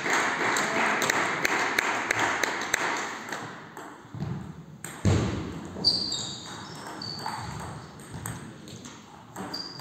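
Table tennis ball clicking off rackets and table in a rally, with sharp hits about five and six seconds in, and shoe squeaks on the hall floor. The first few seconds hold a louder stretch of indistinct noise with many small clicks.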